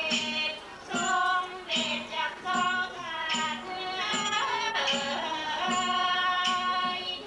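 Thai piphat ensemble playing puppet-theatre music: a sustained, wavering melody line over steady drum strokes about once every three-quarters of a second.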